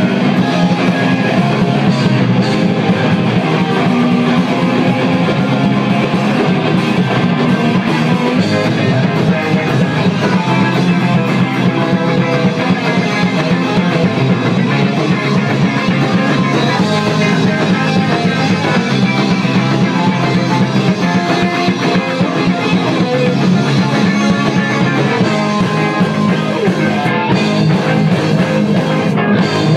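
Live rock band playing loud and steady: electric guitars and bass over a full drum kit, without a break.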